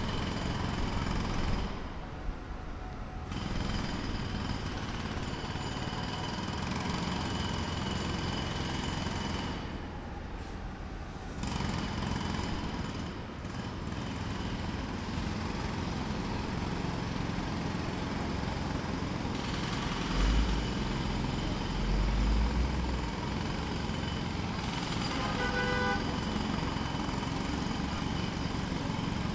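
Distant jackhammer hammering rapidly in long runs over street traffic noise, with short pauses about 2 and 10 seconds in.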